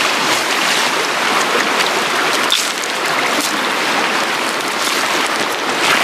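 Water poured from a metal pan splashing onto gravel and campfire ashes, dousing the fire, over the steady rush of a mountain stream. Boots crunch on the stones near the end.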